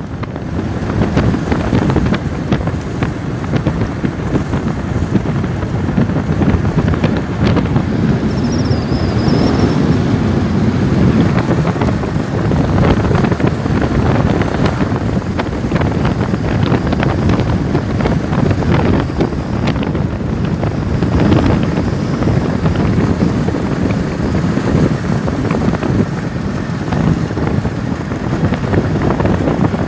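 Wind buffeting the microphone of a camera on a moving motorcycle: a loud, steady low rush.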